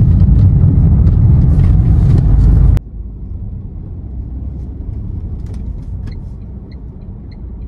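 Car driving up a hill road: loud low wind and road rumble for nearly three seconds, then a sudden drop to a quieter steady cabin rumble of engine and tyres. A few faint high chirps come near the end.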